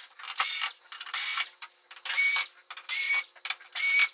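Small orange Black+Decker-style cordless screwdriver running in short whirs about a second apart, each rising quickly to a steady whine, as it backs screws out of a TV's plastic back panel.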